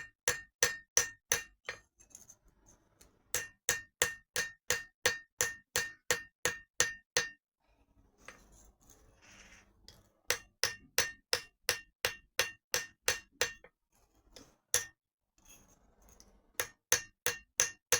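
Hand hammer striking mild steel on an anvil in runs of about three to four blows a second, each blow ringing with a clear metallic tone, broken by short pauses. This is the hammer texturing of cut-out steel discs.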